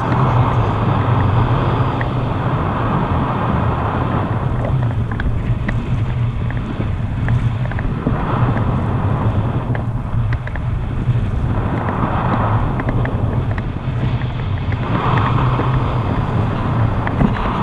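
Wind from paraglider flight buffeting an action camera's microphone: a loud, steady rumble with gusts swelling every few seconds.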